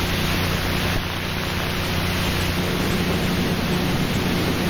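Steady, fairly loud hiss with a low steady hum beneath it, typical of the noise floor of an old 1980s video recording.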